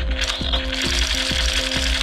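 Background music with a steady beat, a little over two beats a second, over held notes.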